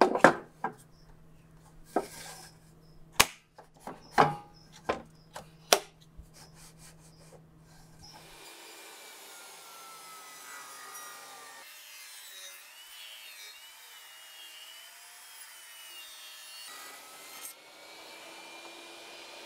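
A 2x4 knocked and slid against a SawStop jobsite table saw's fence and table, a run of sharp knocks, while the fence is set to the width of the piece. From about eight seconds a faint steady whir follows as the saw rips the 2x4 square.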